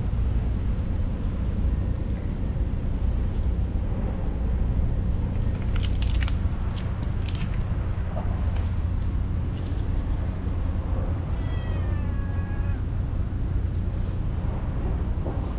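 A kitten meows once, a drawn-out call of about a second and a half with a slight downward fall, about three quarters of the way through, over a steady low rumble.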